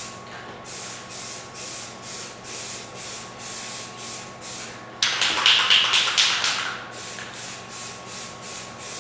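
Aerosol can spraying plastic adhesion promoter in an even coat, a pulsing hiss of about three strokes a second that grows louder about five seconds in for a couple of seconds.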